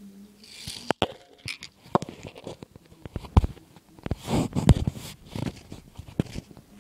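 Handling noise from a phone camera being picked up and moved: irregular knocks, clicks and rubbing of fingers against the phone near its microphone.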